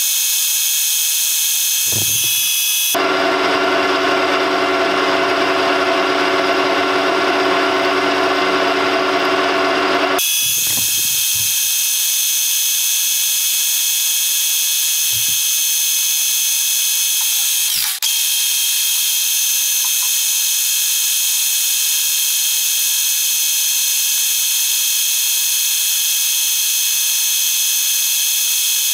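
Colchester Student metal lathe running, with a steady high whine from its geared headstock, while the tool takes a light turning cut along a metal bar. A louder, rougher stretch runs from about 3 to 10 seconds in, and the sound dips briefly about 18 seconds in.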